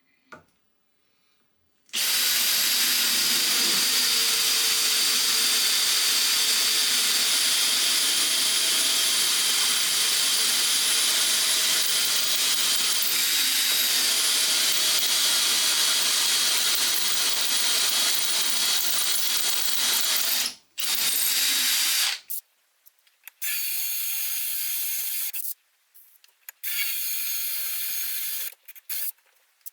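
Cordless drill boring holes in aluminium through a hand-made drill jig: one long steady run of about eighteen seconds, then a brief stop and several shorter bursts near the end.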